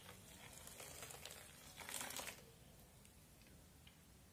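Water poured from a glass jug into a saucepan of blended peach pulp: a faint splashing pour that stops about two and a half seconds in.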